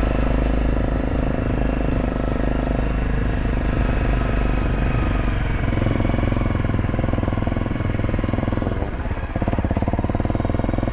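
Off-road motorcycle engine running steadily while riding. It eases off about nine seconds in and settles into a fast, low pulsing beat.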